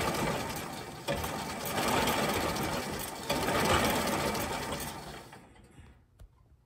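Series-wound DC forklift motor spinning the tractor's transmission input shaft through a spider coupler that is not straight, so the drive wobbles: a dense mechanical rattle that surges about a second in and again about three seconds in, then fades away near the end as it winds down.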